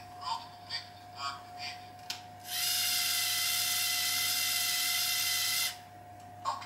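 LEGO Mindstorms EV3 servo motor running with a steady high whine for about three seconds, then stopping abruptly, as it drives a robot arm joint into its starting position. A few short clicks come before it as the EV3 brick's buttons are pressed.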